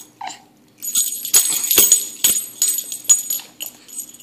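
A baby shaking a handheld toy of small jingle bells, a bright jangling with a run of quick, irregular shakes from about a second in until near the end.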